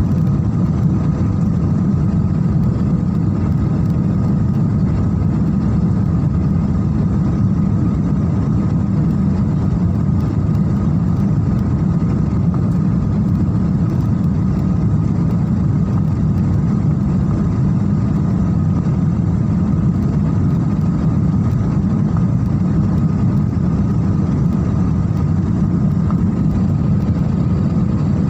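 Steady cabin noise of a jet airliner in flight: a constant low rumble of engine and airflow, with a faint steady hum over it.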